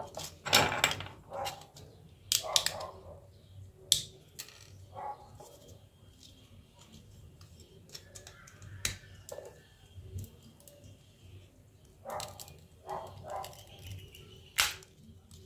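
Nokia 1209 plastic housing and keypad being pried and pulled apart by hand and with a thin metal tool. The sound is a run of sharp plastic clicks and snaps with short scraping between them, the loudest clicks about half a second in, at four seconds and near the end.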